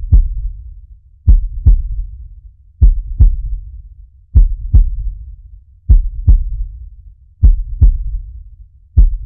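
Heartbeat sound effect: pairs of low thumps, lub-dub, repeating evenly about every one and a half seconds.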